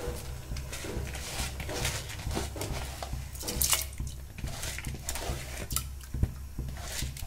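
A hand swishing through water in an aluminium pressure cooker, stirring soaked rice and dal, with irregular small splashes and drips.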